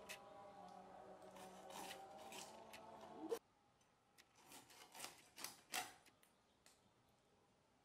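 Rohu fish being cut on a boti's curved blade: a handful of short, sharp slicing strokes, mostly between about four and six seconds in, with quiet between them. Before them, a faint background with steady tones cuts off suddenly about three and a half seconds in.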